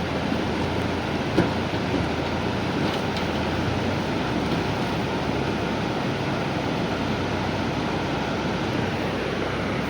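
Diesel engine of a JCB 3DX backhoe loader running steadily, with one brief knock about a second and a half in.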